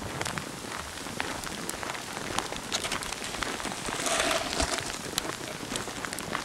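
Snowstorm outdoors: a steady hiss with many small irregular ticks of heavy falling snow striking the microphone, and a brief louder rush about four seconds in.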